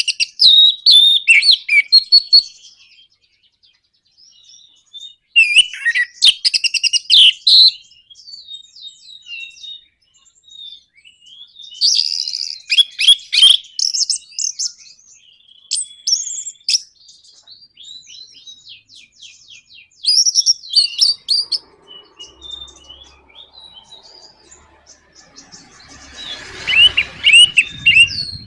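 Orange-headed thrush (anis merah) singing in the fast, chattering 'nraktak' style. The song comes in about six bursts of rapid, high notes, with short pauses between them.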